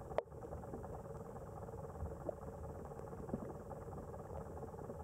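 Underwater ambient noise picked up by a submerged camera: a steady low rumble with a few scattered faint clicks and one sharp click just after the start.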